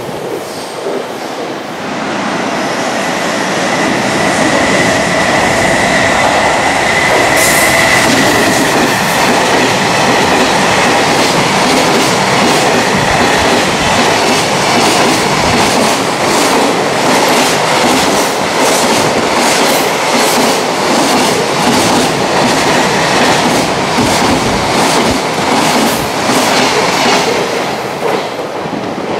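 A long freight train of container flatcars, many of them empty, passing through at speed, its wheels clattering over the rail joints in a steady rhythm. A high steady whine sounds over the rumble for the first several seconds. The noise eases off near the end as the last wagons go by.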